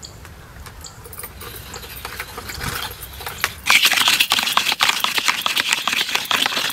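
Fresh coconut being scraped on a grater: a rapid, dense crunchy scraping that starts suddenly about four seconds in and is the loudest sound. Before it, only a low rumble with a few light clicks.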